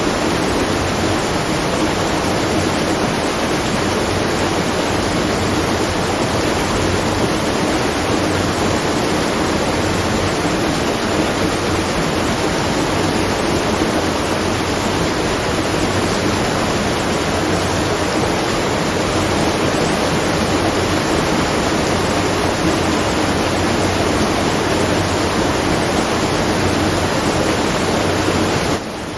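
Water rushing steadily at a watermill, a dense even pour like a waterfall. The level drops a little just before the end.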